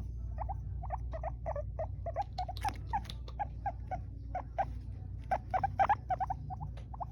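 Abyssinian guinea pig vocalising: a rapid series of short squeaks, several a second, busiest and loudest about five to six seconds in.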